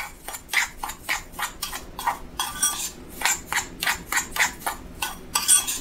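A spoon stirring coarse pink Himalayan salt mixed with coconut oil in a bowl: quick, repeated gritty scrapes and clinks, about four a second.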